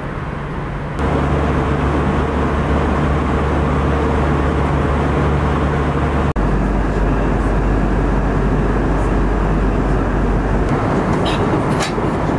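Steady in-flight cabin noise of an Airbus A320 airliner: engine and airflow rumble with a low, even drone. The drone changes abruptly about a second in and again about halfway through, and a couple of brief clicks come near the end.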